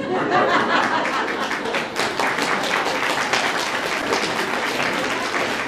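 Audience applauding, starting suddenly and going on steadily.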